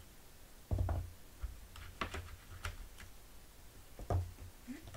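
Small plastic pigment jars being set down and shifted on a plastic palette tray: a few light knocks and clicks, the loudest about a second in and again near the end.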